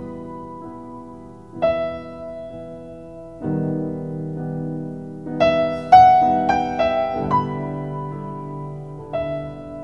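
Background piano music: slow, sustained chords with a few brighter melody notes struck in a quick cluster about halfway through.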